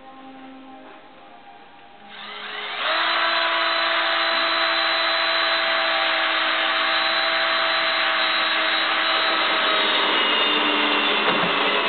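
A motor-driven machine spins up about two seconds in, its pitch rising, then runs steadily and loudly with a whirring hiss.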